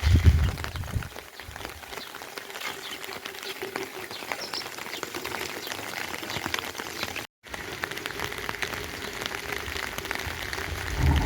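Rain falling, with many small drops pattering close by. A low thump comes right at the start, and the sound cuts out for an instant about seven seconds in.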